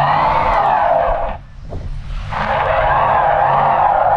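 Full-size SUV stuck in soft sand, its engine revved in reverse while the rear wheels spin without grip, throwing sand. It comes in two surges, each rising and falling, with a pause of about a second between them: the tires are not catching on the traction boards.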